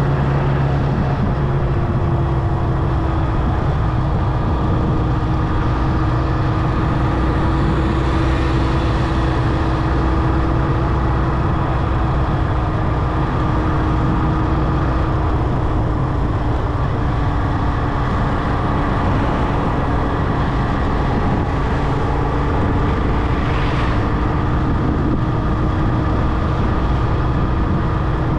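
Motorcycle engine running at a steady cruising speed, its pitch drifting slowly lower, over constant wind and road noise.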